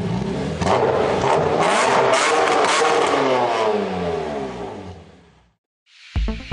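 Car engine revving hard, then its pitch falling steadily as it fades away. Electronic music starts near the end.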